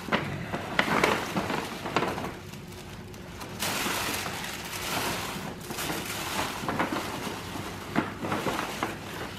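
Tissue paper and a paper gift bag rustling and crinkling as gifts are pulled out of the bag, with a few sharp crackles. The longest rustle is a few seconds in, as a wad of tissue paper comes out.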